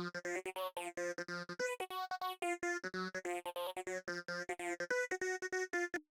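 Psytrance synth line of fast staccato notes run through a sweeping formant filter that arcs up and down, giving a vowel-like, talking character. It cuts off abruptly near the end.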